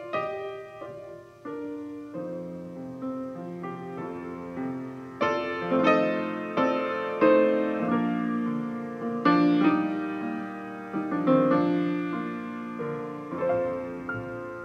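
Grand piano and double bass playing a slow, gentle instrumental piece, with the piano's notes and chords struck about once a second.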